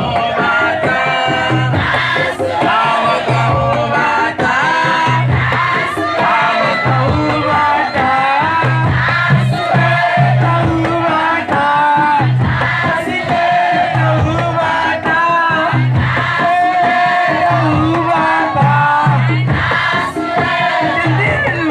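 Maoulida devotional chanting: a large group sings together, with a low beat repeating about once a second underneath.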